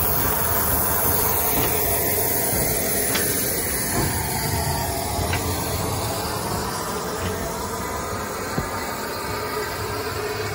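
Steam locomotive 34053 Sir Keith Park, a Bulleid Battle of Britain class Pacific, giving off a steady hiss of steam with no exhaust beats. A few faint knocks sound over the hiss.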